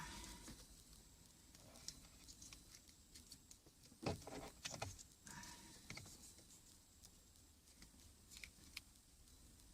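Near silence with faint scattered clicks and a few soft knocks from hands working on the wiring, the loudest knock about four seconds in.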